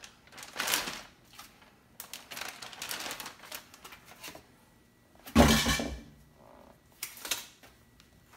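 Plastic zipper bag crinkling and rustling in short bursts as raw turkey legs are worked into it by gloved hands, with one louder thump on the counter about five seconds in.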